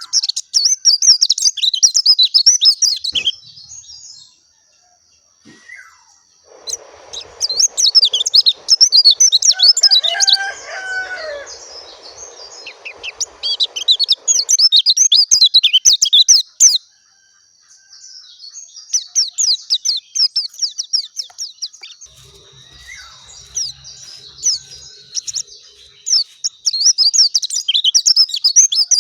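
Pleci dakun (a white-eye, Zosterops) singing in repeated phrases of rapid, high twittering warble, each a few seconds long with short pauses between. A faint rushing noise sits under the second and third phrases.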